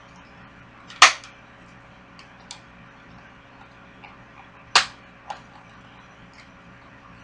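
Sharp plastic clicks and knocks from a New Bright R/C Baja toy truck being handled and turned over: two loud ones about four seconds apart, with a few fainter taps between and after.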